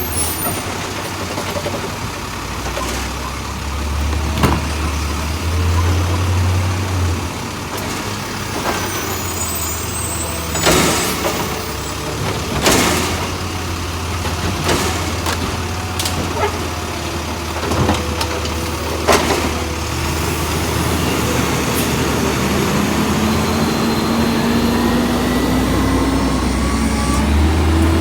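Garbage truck working a cart route: its diesel engine runs steadily, broken by a string of sharp bangs, clatters and hisses as the truck's equipment works. Near the end a drone slowly rises in pitch.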